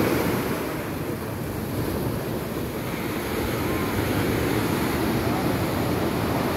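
Sea waves washing and breaking, with wind on the microphone.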